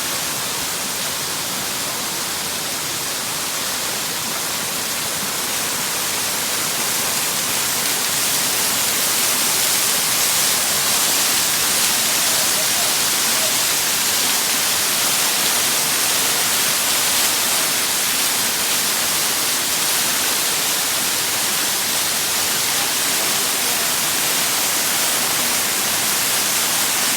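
Waterfall: a steady rushing hiss of falling water, a little louder from about eight seconds in.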